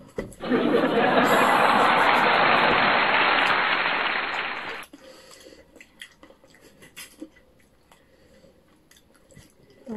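Canned crowd applause and laughter, a dense burst of about four and a half seconds that starts abruptly and dies away about halfway through; after it only faint small clicks.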